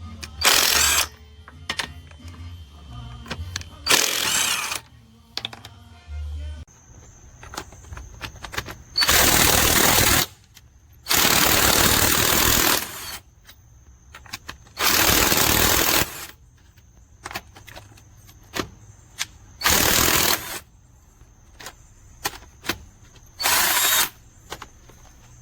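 Avid Power 20V brushless 1/2-inch cordless impact wrench hammering in about seven bursts of one to two seconds each, with pauses between.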